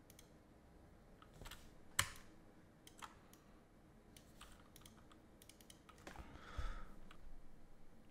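Faint computer keyboard keystrokes and clicks, sparse rather than a steady run of typing, with a sharper click about two seconds in and a soft thump about six and a half seconds in.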